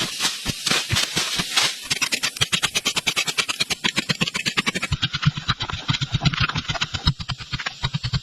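A rapid series of short, sharp knocks: about three a second at first, then quicker, around six a second, from about two seconds in.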